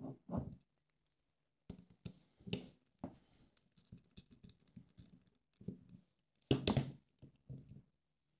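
Hand handling of small screws and a hex screwdriver while fitting a brushless motor to a carbon-fibre drone arm: a run of irregular light clicks, taps and scratches, with a louder clatter about six and a half seconds in, then quiet near the end.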